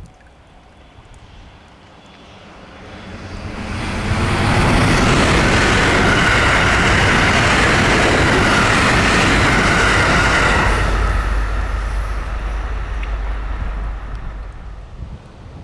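A train approaching, passing close by and fading away. It is loudest for about six seconds in the middle, and a low rumble lingers as it recedes.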